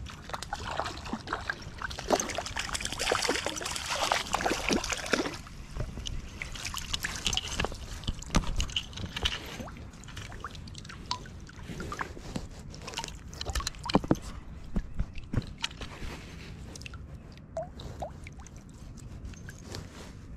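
Hooked brown trout splashing in stream water: a dense run of splashing over the first few seconds, then scattered splashes and drips as it flops in a landing net.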